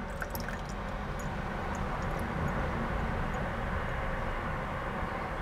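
Steady low rumble and hiss of background noise, with a few faint ticks in the first two seconds.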